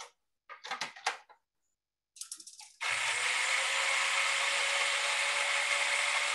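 Food processor chopping cilantro chimichurri ingredients: a few clicks and knocks, then the motor starts about three seconds in and runs with a steady whir.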